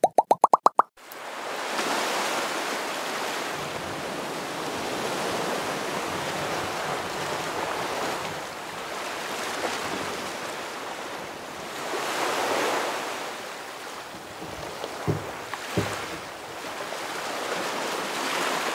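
Ocean surf: waves washing in steadily, swelling and falling back every few seconds. It opens with a quick run of rising jingle tones, and two soft knocks come late on.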